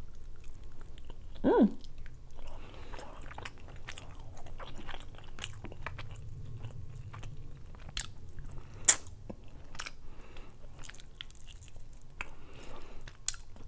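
Close-miked chewing and biting of rotisserie chicken, with many small wet mouth clicks as meat is pulled off the bone and eaten. A short pitched hum comes about a second and a half in, and a sharp click near nine seconds is the loudest sound.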